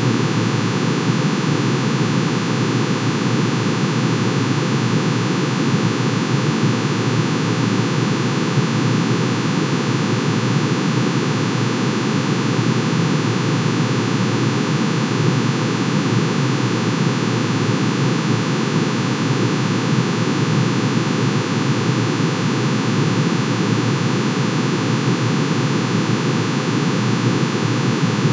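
Synthesized drone made by summing sine waves, one for each line in manganese's atomic emission spectrum, pitch-shifted into the audible range. It comes out as a steady, dense, hissing chord-like noise that does not change.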